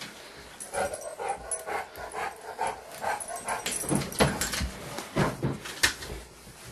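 Dog whining in a string of short, repeated whimpers, followed by a few knocks and thumps.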